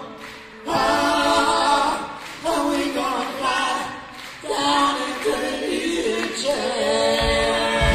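Song with several voices singing in harmony, in phrases of a second or two with short breaks between them; a deep bass comes in near the end.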